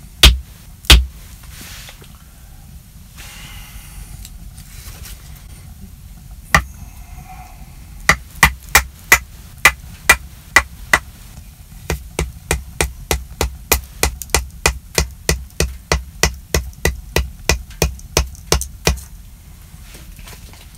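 Hatchet striking wood in a series of sharp knocks: a couple near the start, a quick run about eight seconds in, then a steady run of lighter blows about three a second.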